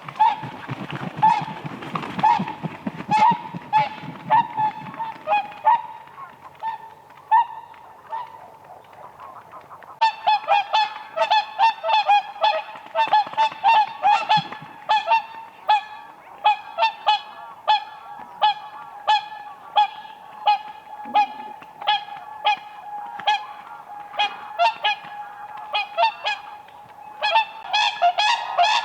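A flock of whooper swans calling: many short, bugling honks repeated one after another, with several birds overlapping. The calling becomes much denser and busier about a third of the way in.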